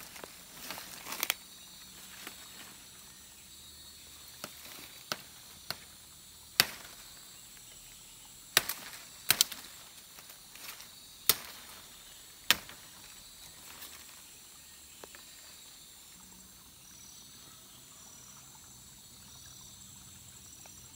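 Machete blade chopping at a sapling stem: a series of sharp, irregular strikes, the loudest between about six and thirteen seconds in, that do not cut cleanly through. Insects keep up a steady high buzz behind.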